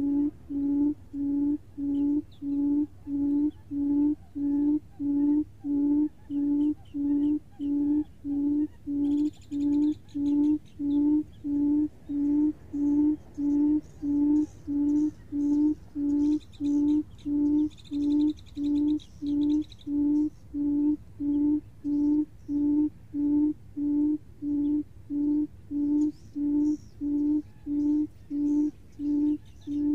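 Lure call of a buttonquail played from a small speaker: one low hoot repeated at an even pace, about three every two seconds, every note the same. Faint high chirps of small birds or insects come and go in the middle.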